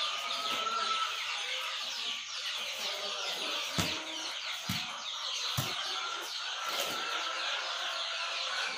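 A flock of chickens clucking and chirping as a dense, continuous chatter. A few dull thumps come between about four and seven seconds in, as feed is scooped and tipped by hand.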